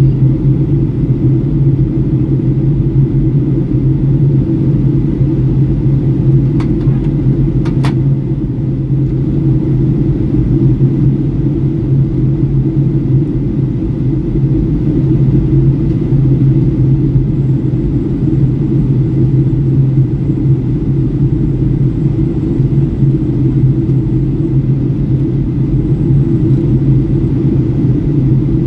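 Steady low rumble of engine and airflow noise inside the cabin of a Boeing 757-300 airliner in descent.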